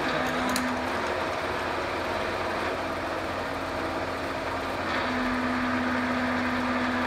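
Cincinnati Cinova 80 vertical milling machine running under power: a steady motor and gear hum with a steady tone that comes in stronger about five seconds in. A couple of light clicks come under a second in.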